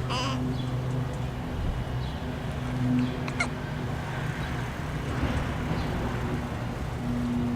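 A person hiccuping, two short sharp hics about three seconds apart, over a steady low hum.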